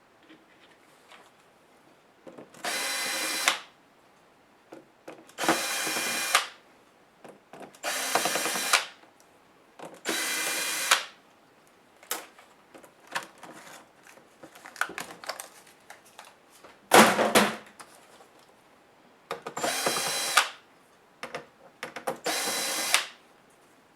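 Electric screwdriver backing out laptop case screws in about seven short runs of roughly a second each, with light clicks and handling of parts between runs.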